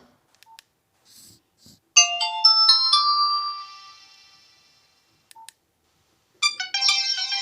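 Nokia 1616 ringtones playing: a short bright melodic phrase of a few notes begins about two seconds in and rings away, and after a pause the next ringtone starts near the end with a quick run of notes. Faint clicks come in the quiet before the first phrase.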